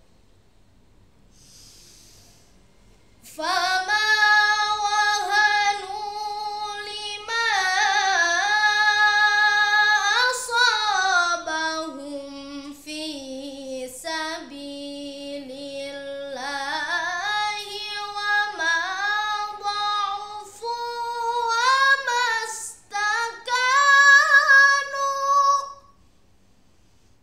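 A boy's voice chanting Quran recitation in the melodic tilawah style: a short breath, then one long unbroken phrase of held, ornamented notes that sinks lower in the middle and climbs high again before stopping.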